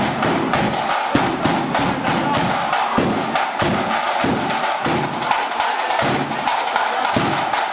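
A flute band's drum section playing on its own: rapid snare drumming over a big bass drum struck at a steady beat about every half-second, before the flutes come in.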